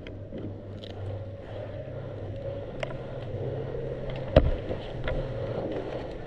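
Airsoft gunfire during a game: a few scattered sharp cracks of shots or BB hits, one much louder with a deep thump about four seconds in, over a steady low hum.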